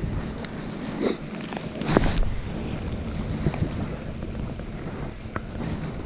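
Wind on the microphone and small sea waves washing among the rocks, with a brief whoosh about two seconds in as a spinning rod is cast.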